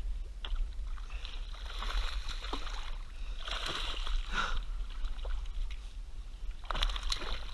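A hooked bass thrashing and splashing at the surface beside a kayak, in several bursts of splashing water.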